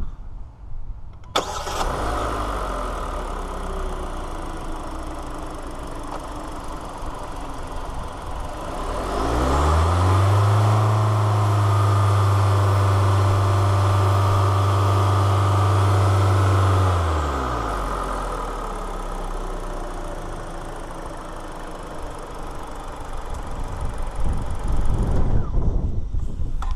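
2018 Kia Forte S's 2.0-litre DOHC 16-valve four-cylinder engine starting about a second in, catching at once and settling to an idle, heard close up from the open engine bay. About nine seconds in it revs up, holds a steady raised speed for about six seconds, then drops back to idle.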